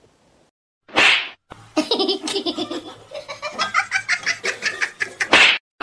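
A person laughing in a rapid run of laughs, with a sharp noisy burst of breath about a second in and another near the end.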